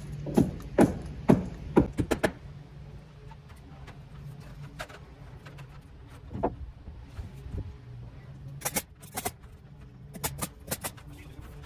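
Sharp knocks of nails being driven into the eave trim: a quick run of about six in the first two seconds or so, then scattered single strikes, over a steady low hum.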